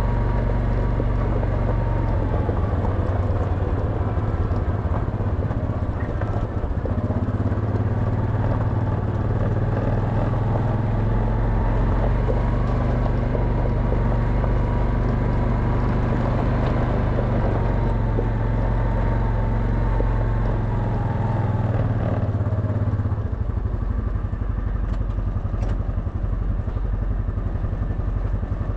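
Quad bike engine running under load, then dropping to a steady, evenly pulsing idle a few seconds from the end.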